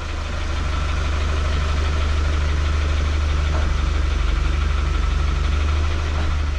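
A vehicle engine idling steadily, with a deep, even pulsing hum.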